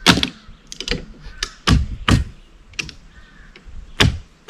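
An irregular series of sharp knocks and clatters, about six in four and a half seconds, the loudest near the start, about two seconds in and near the end.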